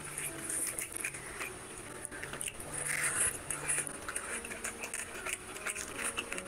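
Wet squishing and sticky clicking of bare fingers kneading rice into mutton curry gravy on a plate, a run of small irregular squelches, loudest about three seconds in.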